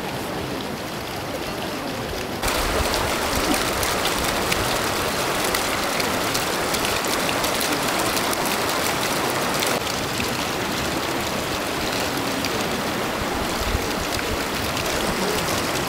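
Steady rush of flowing water. It gets louder about two and a half seconds in and eases a little about ten seconds in.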